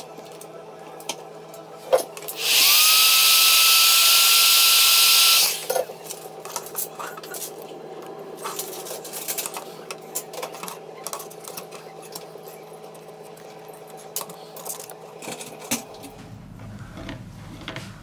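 A small power tool's motor starts about two seconds in, its whine rising briefly and then holding with a loud hiss for about three seconds before cutting off. For the rest of the time there are light clicks and taps of a plastic pry pick working along the edge of a phone.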